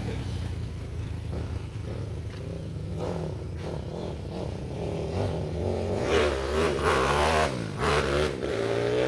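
Kawasaki KLX 150L single-cylinder engine, built up with an XRM 125 four-valve head and a 70 mm forged piston, running and being revved. Its pitch rises and falls repeatedly in the second half.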